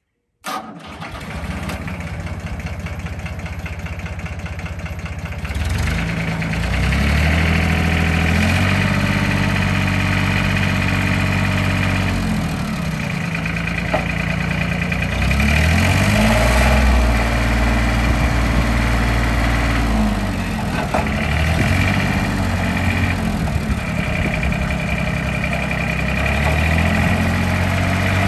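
Lenar 274 compact tractor's diesel engine running, steady at first, then louder from about six seconds in, its speed stepping up and down several times as the front loader is raised.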